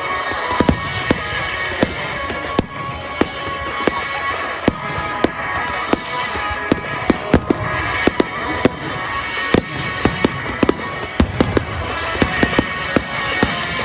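Fireworks display: dozens of sharp aerial shell bursts in quick succession, coming thickest in the second half, with music playing underneath.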